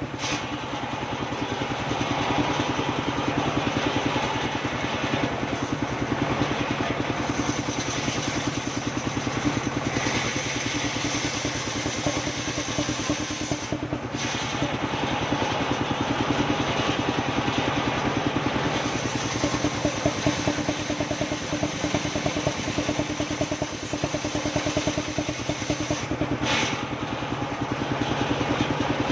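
Engine-driven circular-saw sawmill running steadily, its engine heard as a fast, even pulsing.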